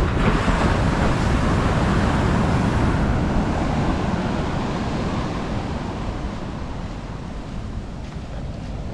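Ocean wave breaking and washing up the beach, loudest over the first few seconds and then slowly fading as the water runs back, with wind rumbling on the microphone.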